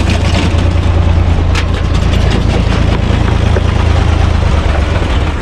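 UTB U445 DT tractor's four-cylinder diesel engine running steadily under load, driving a PTO cone log splitter, with one sharp knock about a second and a half in.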